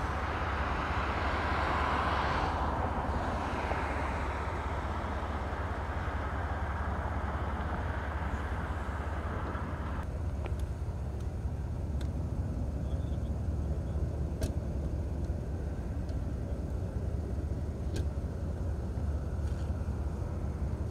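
Car in a parking lot: steady low engine rumble with tyre and road noise that swells in the first few seconds and drops off abruptly about halfway. A few faint sharp clicks follow.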